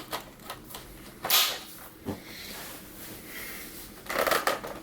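Handling noises as a plastic car armrest lid and its cover piece are fitted together: a short scraping swish about a second in, a small click around two seconds, and another scrape near the end.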